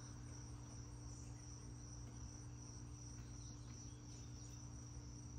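Faint, steady high-pitched trill of crickets, with a low steady hum beneath it.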